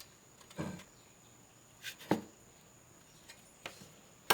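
Light knocks and clicks from drop-ceiling parts being handled: about five short taps spread over the few seconds, the loudest a little after two seconds in.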